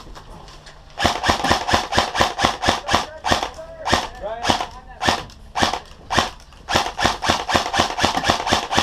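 Airsoft rifle firing rapid single shots, about four sharp cracks a second, starting about a second in and going on without a break.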